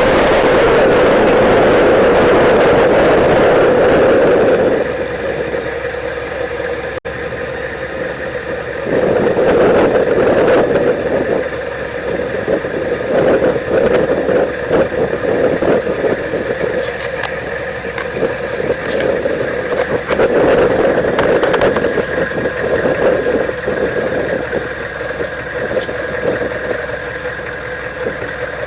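Straight-piped 6.5-litre Detroit Diesel turbo V8 in a pickup truck running, buried under a loud rushing noise for the first five seconds. After that the engine is heard clearly, swelling and easing off again and again as the throttle changes.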